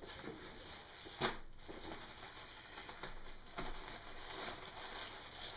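Rustling and crinkling as a folded t-shirt is unwrapped and unfolded, with a sharp snap of the packaging a little over a second in and a smaller click later.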